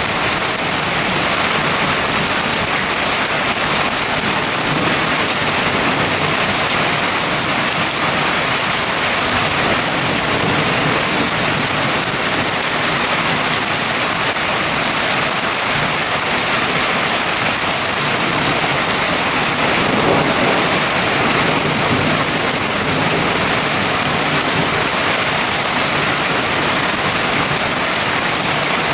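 Heavy rain falling steadily during a thunderstorm, a dense, even rush of noise without a break.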